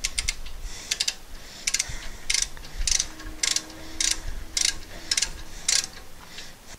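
Ratcheting wrench clicking on each back-swing as a brake caliper bolt is run in: a steady series of sharp clicks, about two a second.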